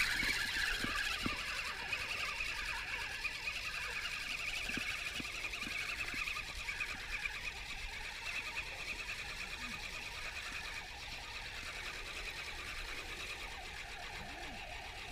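Spinning reel on a feeder rod being cranked steadily, its gears whirring as a hooked fish is wound in; the sound slowly gets quieter.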